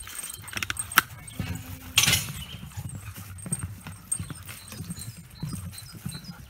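Footsteps of a walker and several dogs on the wooden planks of a footbridge: an uneven clatter of hollow thuds and knocks, with a sharp knock about a second in and a louder scuffing clatter about two seconds in.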